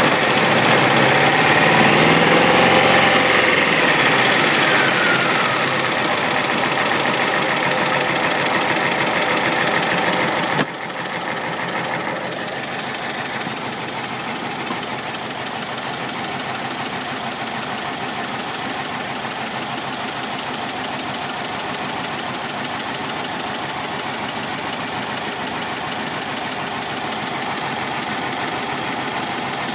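1965 Porsche 912's air-cooled flat-four engine running close up. Its speed rises and falls once in the first few seconds, then it settles into a steady idle with a fast, even beat. The level drops suddenly about ten seconds in.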